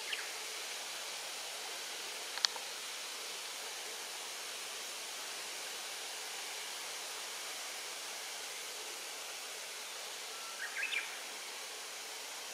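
Steady outdoor background hiss. A single sharp click comes about two and a half seconds in, and a brief run of high, rising chirps about ten and a half seconds in.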